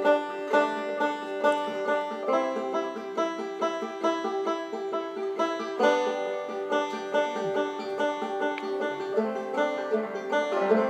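Open-back banjo played clawhammer style in the double-thumb technique: a steady, unbroken run of plucked notes picked down onto the strings with the thumb brought in between.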